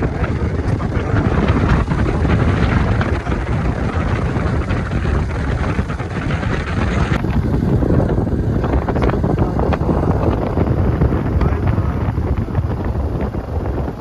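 Wind buffeting the microphone over a steady low rumble, loud and rough throughout.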